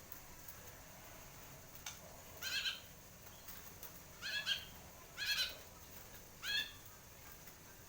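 White-rumped shama (murai batu) giving four short calls about a second apart, each a quick rising note with overtones. The bird is just out of its moult and singing freely.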